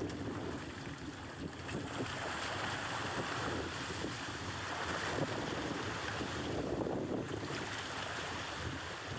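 Wind buffeting the microphone over the steady wash of sea water at sea.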